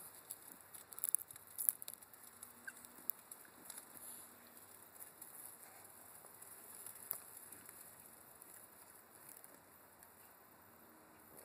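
Faint scattered clicks and scraping from Russian tortoises during mating: the shells knocking together and the feet scraping on dirt and bark mulch. The clicks are loudest in a cluster about a second in.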